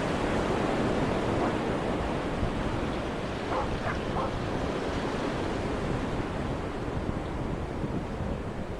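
Ocean surf washing steadily, mixed with wind buffeting the microphone. A few short, faint calls sound about three and a half to four seconds in.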